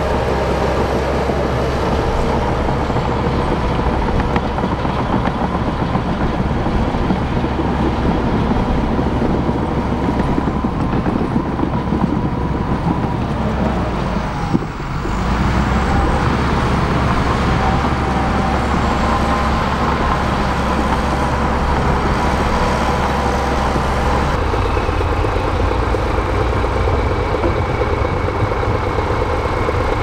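Bulldozer's diesel engine running steadily under work. The sound dips briefly about halfway through and changes in tone near the end.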